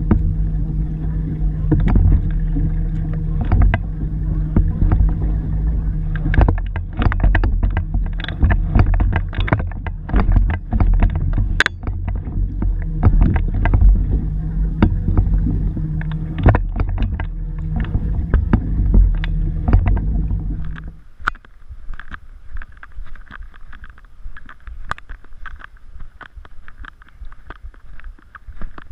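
Kayak paddling: the paddle splashes and knocks on the plastic hull in irregular strokes, over a steady low hum. About 21 s in this gives way to quieter wind noise with light clicks.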